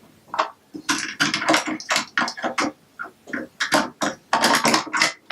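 Plastic Lego Duplo bricks and figures clicking and clattering as they are handled and pressed into place, in irregular short knocks with quick clusters of rattles.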